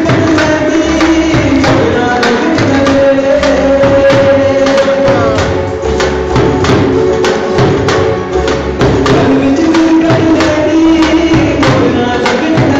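Loud live dance music: a dhol drum beating fast strokes under a held, sustained melody line.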